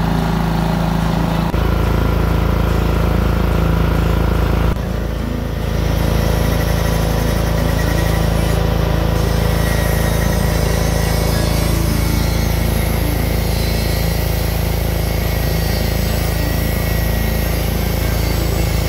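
Small portable petrol generator engine running steadily at constant speed, powering the welding and grinding work.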